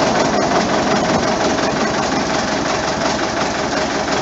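Small shunting locomotive's engine running steadily, a dense mechanical drone with one steady tone held in it.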